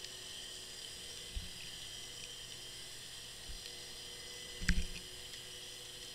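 Sound picked up by an underwater camera in its waterproof housing on the seabed: a steady hiss with faint high whines, broken by a few soft knocks. The loudest knock, with a sharp click, comes about three quarters of the way in.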